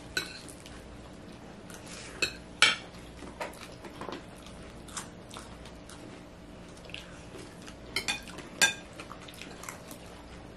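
Metal spoons clinking and scraping against plates in scattered, irregular taps while people eat, two of them louder than the rest.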